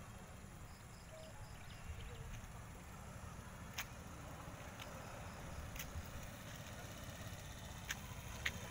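Faint motorcycle-and-sidecar engine running in first gear as it comes closer, growing slightly louder over a steady low rumble, with a few scattered sharp clicks.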